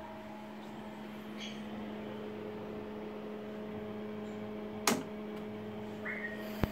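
Steady electrical hum from a running Siemens MS5 traffic signal controller, with two sharp clicks of its front-panel toggle switches being flipped, about five seconds in and again near the end.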